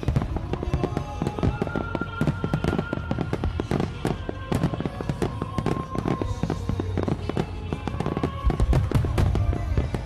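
Aerial firework shells bursting in a dense barrage, with many rapid bangs and crackles overlapping.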